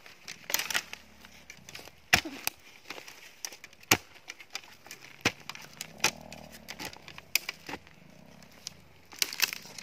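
A hoe blade chopping into earth, several sharp irregular strikes, the loudest about two and four seconds in, with dry grass and twigs rustling between them as a planting hole is dug.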